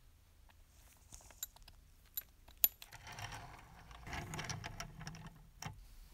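A few sharp metallic clicks, then a rattling whir for about two and a half seconds from the restored pre-war JEP tinplate locomotive's clockwork mechanism running.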